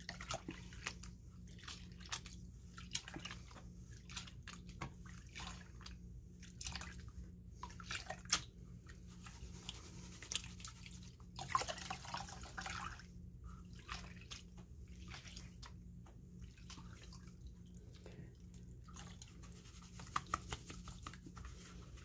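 Water sloshing, splashing and dripping as a plastic gold pan is swirled and dipped in a tub of water, washing crushed ore down to the heavier material. The splashes come in many short strokes, with a longer wash of water about twelve seconds in.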